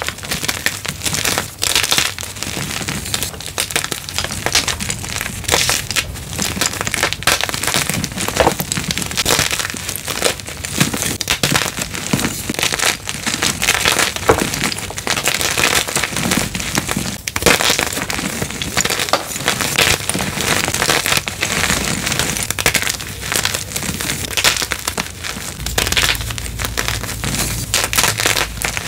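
Blocks of gym chalk being crushed, a dense run of crunching and crumbling crackles throughout. A low rumble joins for the last few seconds.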